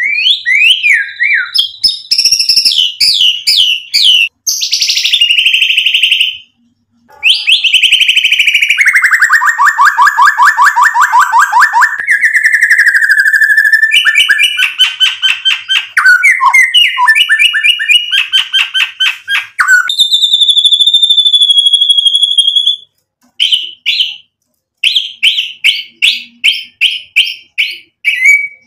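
Male white-rumped shama singing a loud, varied song: fast repeated notes and trills, a long descending trill in the first half, and one long held whistle about two-thirds through, broken by short pauses.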